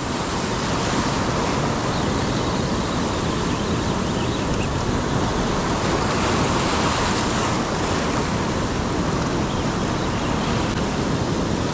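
Sea surf breaking and washing over shoreline rocks, a steady rush of water noise, with wind buffeting the microphone.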